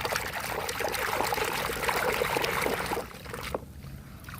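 Water pouring and splashing over a plastic toy vehicle as it is rinsed clean, with small clicks of handling. The flow stops about three seconds in.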